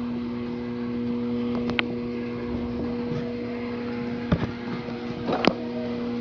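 Steady hum in a workshop, with a few sharp metal clicks from the tool box's side locker being opened, the loudest about four and five seconds in.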